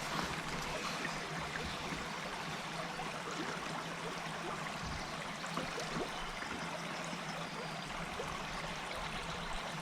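Flowing river water, a steady even noise with faint small ticks.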